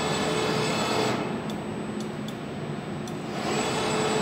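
Axis drive motors of a CNC plasma cutting table whining as the gantry is jogged in manual mode, swelling near the start and again near the end, with a few light clicks in between.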